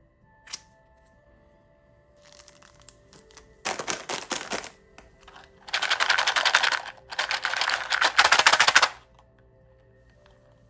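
Crinkly plastic candy wrapper being handled and unwrapped up close, in three bursts of dense rapid crackling, with a single click near the start. Soft background music plays underneath.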